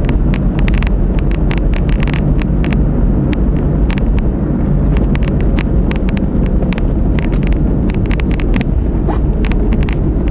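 A car driving, with a steady low road-and-engine rumble and many irregular sharp clicks scattered through it.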